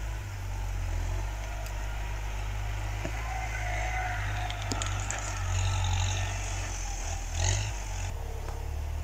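Tractor engine running steadily, heard as a low drone.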